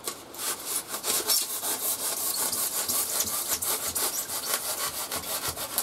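Insulation hand saw cutting through a white foam pipe-insulation section, rapid back-and-forth scraping strokes throughout.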